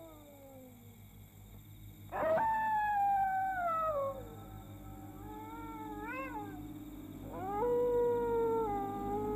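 A dog howling: long, drawn-out howls that slide down in pitch over a steady low hum. The first starts suddenly about two seconds in, a shorter wavering one comes near six seconds, and a third begins at about seven and a half seconds.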